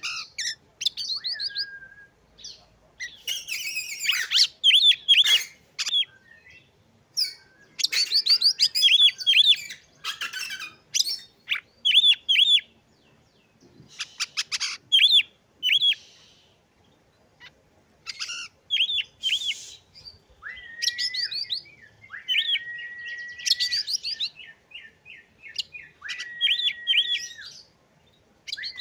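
Oriental magpie-robin singing in short varied bursts: quick runs of repeated high chirps, some harsh rasping notes in the first half, and several long level whistles in the second half.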